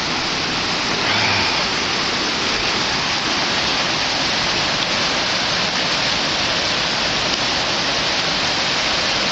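Creek water rushing, a steady, even wash of noise.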